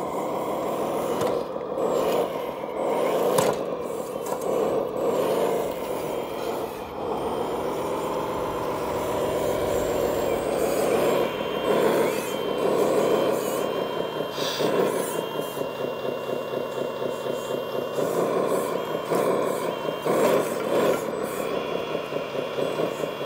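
Radio-controlled hydraulic wheel loader at work: a continuous motor whine that rises and falls in pitch as it drives and works its arm. A thin high tone comes and goes in the second half.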